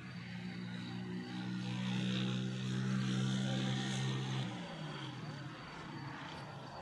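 A passing engine: a steady droning hum grows louder, peaks about three seconds in, then drops in pitch and fades away.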